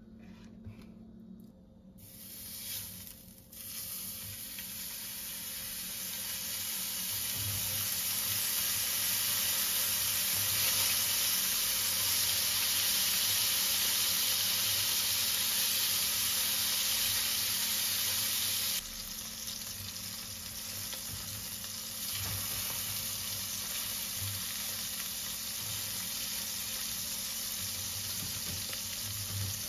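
Slabs of white cheese frying in hot oil in a stainless steel skillet: a steady, loud sizzle that sets in about two seconds in, after a quiet moment, and eases a little about two-thirds of the way through.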